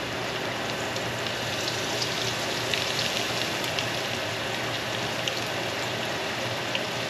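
Breaded sheepshead fillets pan-frying in hot oil in a stainless steel skillet: a steady sizzle with scattered crackles and pops.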